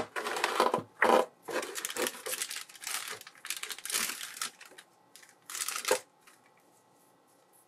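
Clear plastic bag crinkling as gloved hands slide a figure out of it: a run of irregular rustles that stops about six seconds in.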